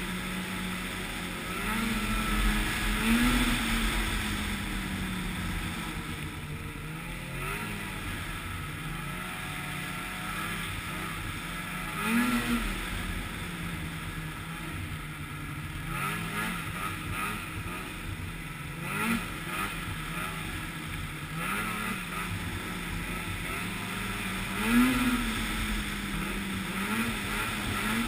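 Snowmobile engine running steadily while riding, revving up briefly about four times, the biggest rise near the end.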